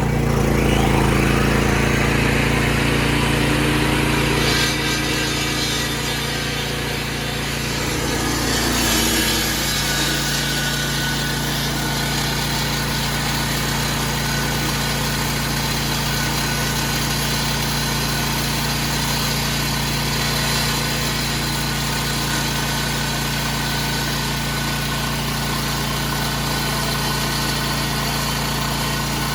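Portable generator engine running steadily at a constant pitch. For the first eight or nine seconds a harsher, louder noise runs over it, then it settles to the engine alone.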